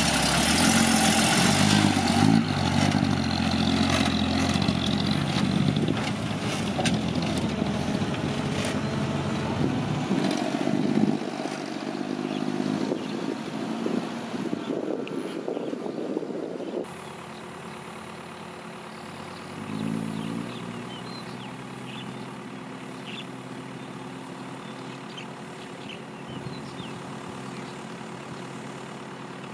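A six-wheel dump truck's engine runs loud as the truck passes close, its pitch falling, then fades over about ten seconds. Past the middle the sound drops abruptly to a quieter steady engine hum, with one brief swell of engine noise soon after.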